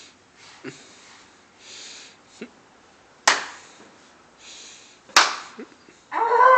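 Two sharp smacks about two seconds apart, with soft rustles and puffs of breath between them, then a short vocal cry that rises and falls near the end.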